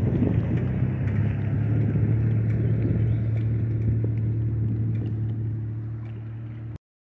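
A steady, low engine hum with noise over it. It eases off slightly after about five seconds, then cuts off abruptly near the end.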